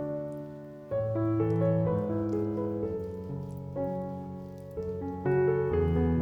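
Background piano music: sustained chords with a melody changing every half second or so, a new phrase starting about a second in.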